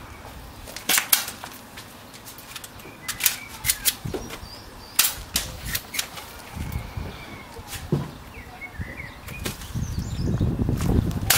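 Spring-powered airsoft guns firing single shots, each a sharp snap, irregularly spaced with some in quick pairs. A low rustling rumble builds near the end.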